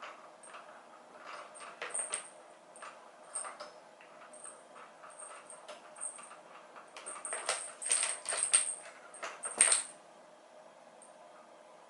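Cat teaser toy rattling and rustling in short scattered clicks as a cat bats at it and grabs it, busiest and loudest in the second half.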